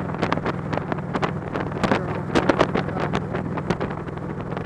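Touring motorcycle's engine running steadily at freeway speed, with wind buffeting the microphone in a rapid series of sharp crackles and pops.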